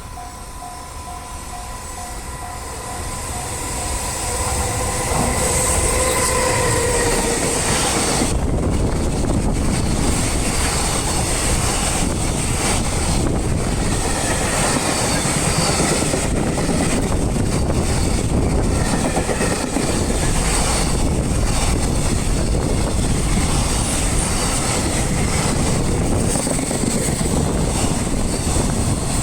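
A level crossing warning bell rings for the first few seconds as a pulsing tone. Then a long freight train hauled by an EF210 electric locomotive passes close by: the rumble of wheels and wagons builds over a couple of seconds and runs on steadily.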